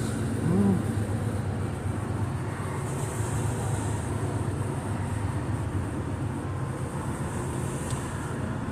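Steady low mechanical hum of a shop's background ambience, with one brief short chirp under a second in.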